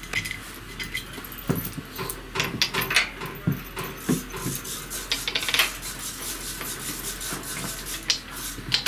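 Steel bolts being fitted by hand where the engine meets the gearbox of a walk-behind tractor: irregular metallic clinks, taps and scrapes.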